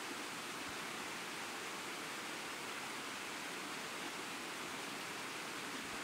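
Waterfall water cascading over rocks: a steady, even rushing hiss that does not change.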